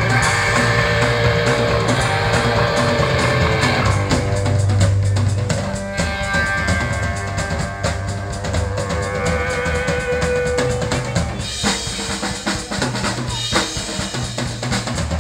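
Punk rock band playing loud: a busy drum kit over sustained guitar and bass notes. The held notes fall away about eleven seconds in, leaving mostly drums.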